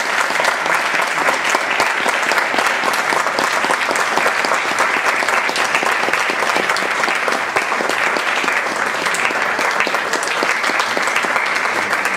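Audience applauding, a dense, steady clapping that holds at an even level throughout.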